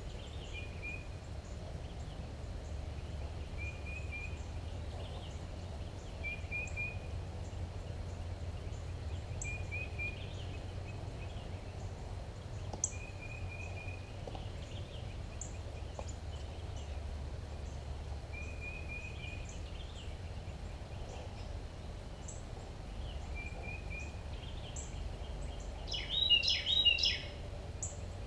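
Wild birds calling: a short trill repeats every few seconds, with scattered high chips, and a louder burst of warbling calls about two seconds before the end. A steady low rumble runs underneath.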